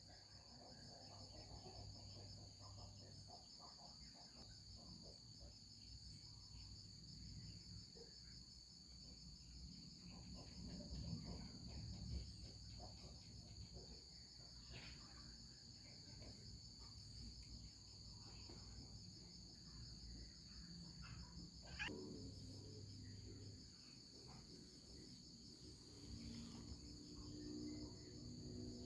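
Crickets chirping in a steady, fast high trill, with a few faint knocks.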